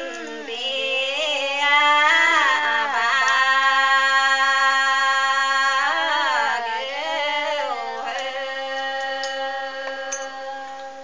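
Women singing a highland ethnic folk song unaccompanied, in long held notes with sliding pitch bends between them; the singing fades away near the end.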